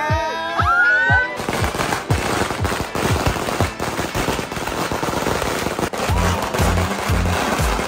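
A long string of firecrackers going off in a rapid, continuous crackle of bangs, starting about a second and a half in. Background music plays over it, with a steady bass beat near the end.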